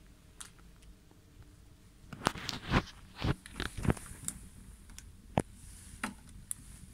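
Handling noise: about two seconds in, a dense run of crackly clicks and knocks, followed by a few single sharp clicks, as a hand and the recording device move against the plastic toilet seat.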